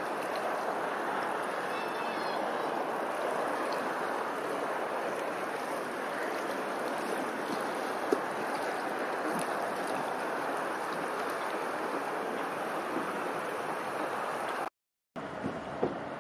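Steady rushing and lapping of open water, with a faint high chirp about two seconds in. The sound drops out completely for a moment near the end, then a quieter, different outdoor ambience follows.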